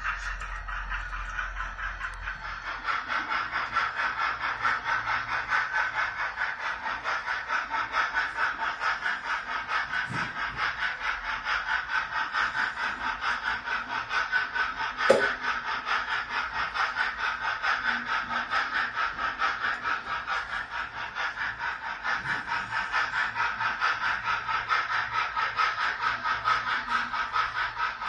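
Model steam locomotive running with its train, giving a steady hissing chuff about four beats a second. A single sharp click about halfway through.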